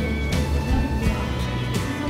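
Background music: sustained notes with percussive hits repeating every half second or so.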